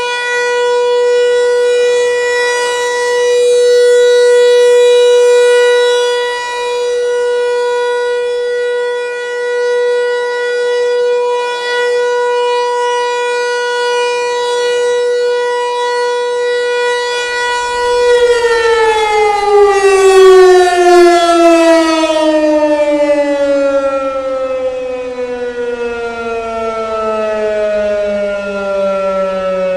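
ASC T-128 outdoor warning siren sounding a steady alert tone, the signal for a tornado warning. About 18 seconds in it shuts off and winds down, its pitch falling steadily.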